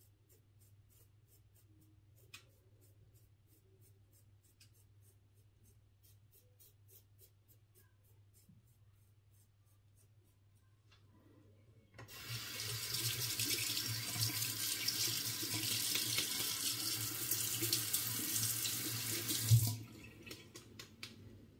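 Faint scratching of a disposable razor's strokes through long stubble, a few strokes a second. Then a tap running hard into a bathroom sink for about eight seconds as the razor is rinsed of clogged hairs, cut off with a sharp knock near the end.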